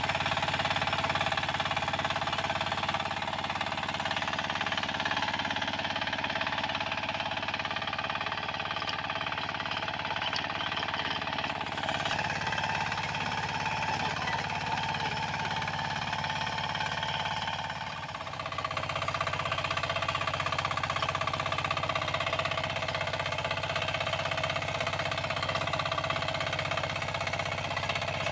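Small engine of a walk-behind power tiller/weeder running steadily under load while its rotary tines churn the soil, with a brief drop in level about two-thirds of the way through.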